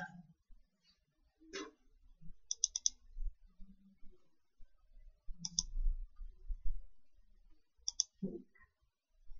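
Sharp clicks of carom billiard balls striking: a quick run of three about two and a half seconds in, a pair halfway through and another near the end, with soft low knocks in between.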